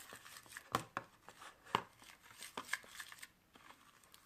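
A spoon stirring sticky homemade slime of white glue and detergent activator in a bowl: irregular wet squelches and clicks of the spoon against the bowl, the sharpest about a second in and again near two seconds. The slime is still clinging to the bowl.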